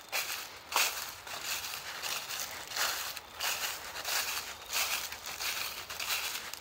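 Footsteps crunching through a thick layer of fallen dry autumn leaves on a woodland trail, a crunch and rustle with each step at a walking pace.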